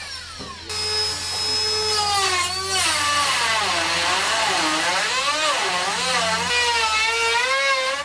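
Cordless high-speed rotary cut-off tool cutting through an aircraft's control cables: a motor whine that starts under a second in, its pitch sagging and wavering as the wheel bites under load.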